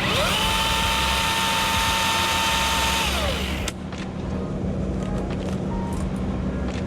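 Battery-powered Milwaukee chainsaw's motor spinning up to a steady high whine, running for about three seconds, then winding down and stopping.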